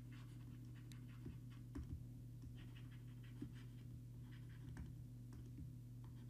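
Faint scratchy strokes of a stylus writing on a pen tablet, coming in short clusters as words are handwritten, over a steady low electrical hum.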